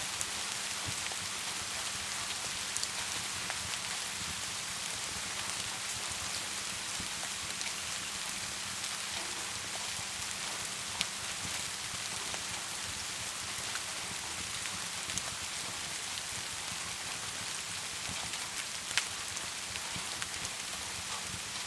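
Wood fire crackling, under a steady rain-like hiss, with scattered small crackles and two sharper pops, about halfway through and near the end.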